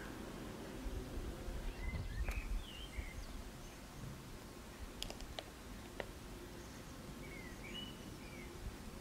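Birds chirping outside with a short series of call notes twice, over a steady hiss of background ambience, with a low rumble about two seconds in. A few sharp clicks come about five and six seconds in.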